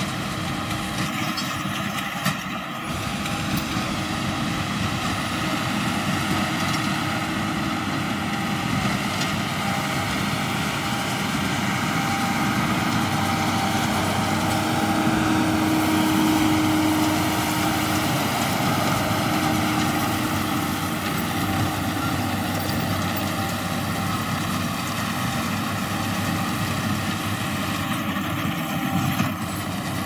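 John Deere 7530 tractor's engine running steadily under load, pulling a Massey Ferguson 2270 large square baler whose machinery runs along with it. Louder around the middle as the rig passes close.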